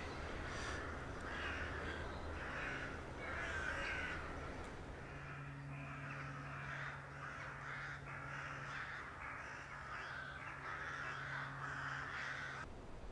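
Crows cawing at their roost, many calls coming one after another without a steady rhythm, some overlapping; they stop suddenly near the end.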